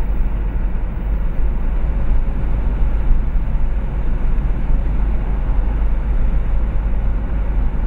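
Steady road, engine and wind noise inside a car driving behind a cyclist, dominated by a heavy low rumble.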